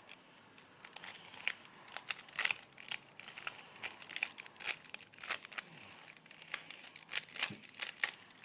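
Plastic 2x2x2 Rubik's Cube being turned quickly by hand during a speed solve: a string of short, irregular clicks and rasps as the layers snap round, several a second.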